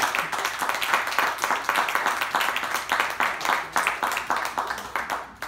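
Small audience applauding, dense hand-clapping that dies down near the end.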